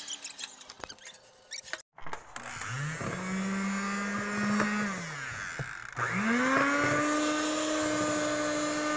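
Electric hand mixer beating a mixture in a bowl. It spins up, runs steadily and winds down, then starts again and holds a higher speed. A couple of seconds of light tapping come before it.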